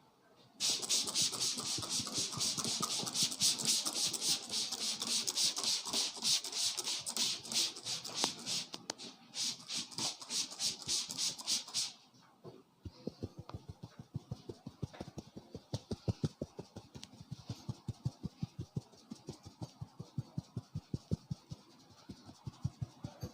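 Head massage by hand. For the first half, fast vigorous rubbing through the hair and over the scalp makes a hissing scratch at about five strokes a second; it stops abruptly. After that come quieter, sharp rhythmic taps on the head, about four a second.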